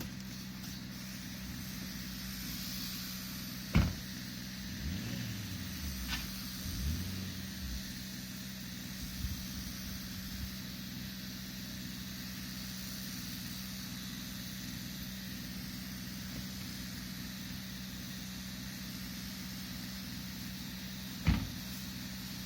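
An engine idling steadily, with a sharp knock about four seconds in and another near the end.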